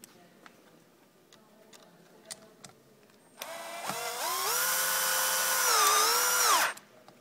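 A power drill-driver drives a screw into a Rottefella binding on a roller ski. After a few light clicks, the motor whines up to speed about three seconds in and runs steadily. It dips briefly in pitch under load near the end, then stops abruptly.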